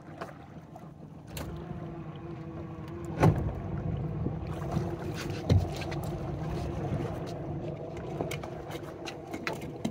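A small motor on the boat hums steadily from about a second and a half in. Over it there is a sharp knock about three seconds in, a dull thud a little later, and light knocks near the end while a crab trap line is pulled in by hand.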